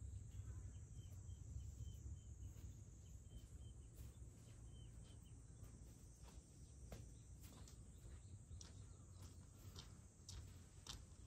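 Near silence: a low rumble, with a run of short high chirps from a bird in the first few seconds, a faint steady high hum, and a few faint clicks in the second half.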